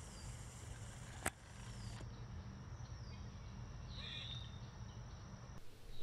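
Outdoor woodland ambience: a steady low rumble, with a short high falling call repeating about every second and a half. There is a sharp click just over a second in and a brief harsher call about four seconds in.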